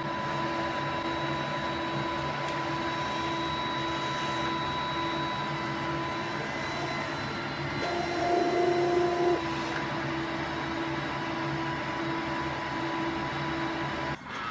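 Large-format inkjet printer running with a steady machine hum. A louder stretch about eight seconds in adds a higher tone for a second and a half.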